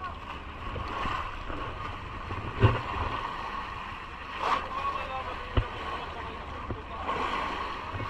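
Steady low rumble aboard a fishing boat at sea, with a few sharp knocks.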